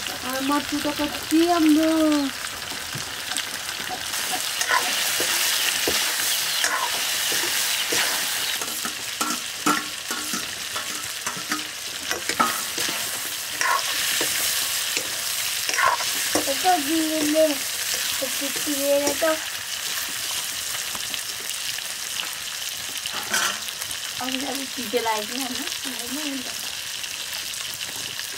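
Food sizzling as it fries in a pan, stirred by a ladle or spoon that clicks and scrapes against the pan many times. A few brief voice-like sounds come through in the background, three times.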